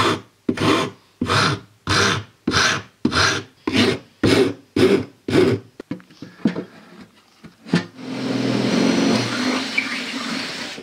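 A hand file rasping across the edge of poplar plywood, about ten even strokes at roughly one and a half a second. After a few light knocks and a click, a cordless drill runs steadily for about three seconds near the end.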